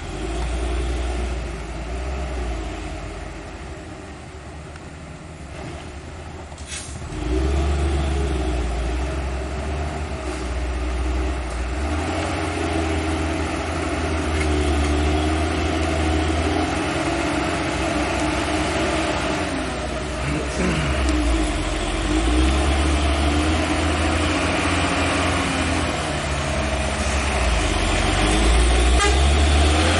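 Heavy truck's diesel engine labouring up a steep climb, its pitch wavering up and down. It gets louder suddenly about seven seconds in and again near the end.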